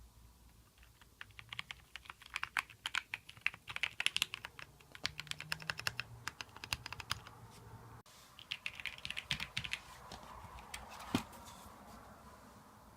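Typing on a Keychron V6 Max mechanical keyboard with Gateron Brown tactile switches: a fast run of keystrokes for several seconds, a short pause, then a second shorter run, with one louder single keystroke near the end.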